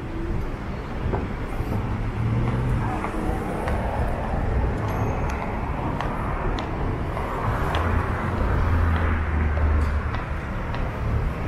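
Downtown street traffic: cars and other vehicles running and passing with a steady engine and tyre rumble. One passing vehicle grows louder about two-thirds of the way through.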